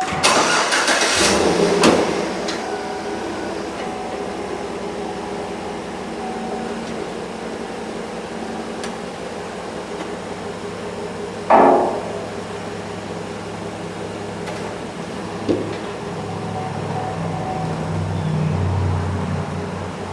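Truck engine running steadily, louder for the first couple of seconds, with a sharp loud clunk about halfway through, a smaller knock a few seconds later, and the engine working harder near the end as the truck is driven onto the lift ramps.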